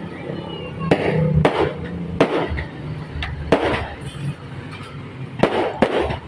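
Fireworks going off: about eight sharp bangs at uneven intervals, some in quick pairs, over a continuous background of further bursts.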